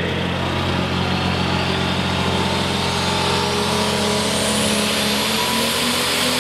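Super stock pulling tractor's turbocharged engine running hard at high revs as it pulls the sled. About halfway through, a high whine climbs steeply and then holds.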